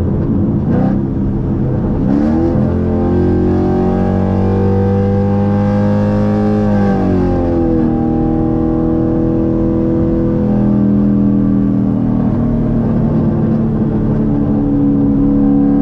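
Full-bolt-on, E85-tuned Chevrolet Camaro 1LE's 6.2-litre V8 heard from inside the cabin during a roll-race pull. The revs rise sharply about two seconds in, then the engine pulls hard with slowly climbing pitch. The pitch drops at an upshift a little past halfway, then it runs on steadily, with the revs climbing again near the end.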